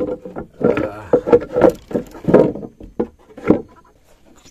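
Wooden hatch boards of a boat's fish hold being handled: a run of irregular knocks and scrapes, with a scraping whine in the first second or so. It fades out after about three and a half seconds.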